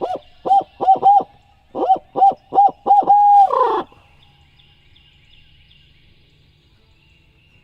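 Barred owl hooting: a rhythmic run of short rising-and-falling hoots in the 'who cooks for you' pattern, ending about four seconds in with a longer note that drops in pitch.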